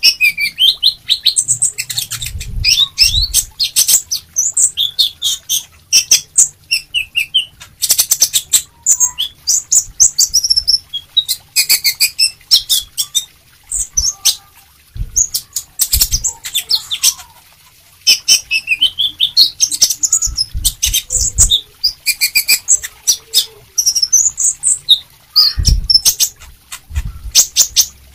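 A caged male sunbird singing hard: rapid runs of high, sharp chirps and twittering notes with many clicky notes, broken by brief pauses. A few low thumps are mixed in.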